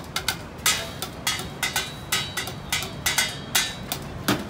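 Street drumming on an improvised kit of pots, pans, metal lids, tins and plastic buckets: fast, uneven strikes at several per second, some leaving a short metallic ring.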